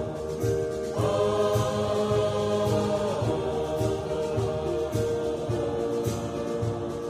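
Mixed church choir singing a slow anthem in sustained held chords, over an accompaniment that keeps a steady beat.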